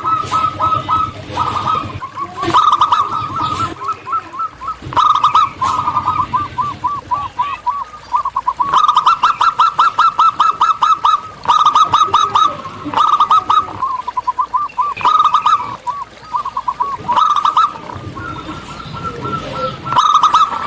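Zebra doves calling: phrase after phrase of rapid, short coo notes, each run lasting a second or two with brief pauses between.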